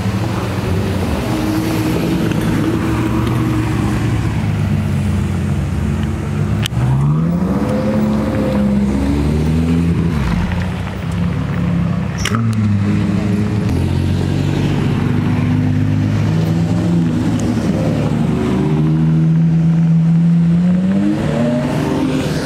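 Ferrari sports cars driving past one after another, engines running with several rising revs as they accelerate. Two brief sharp clicks, about seven and twelve seconds in.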